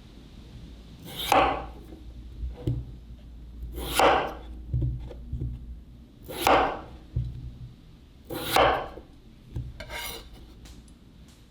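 Raw potato being worked with a blade in five long scraping strokes, about two to two and a half seconds apart, with soft knocks between them.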